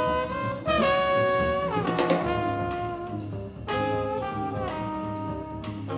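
Jazz quintet playing: saxophone and trombone hold long notes together, changing pitch every second or two, over upright bass and a drum kit with cymbal hits.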